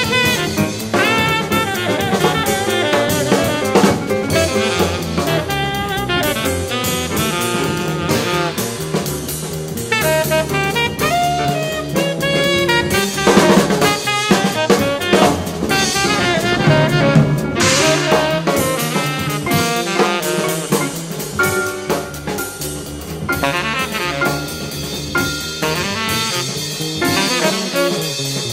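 Small jazz quartet playing: saxophone lines over drum kit, piano and bass.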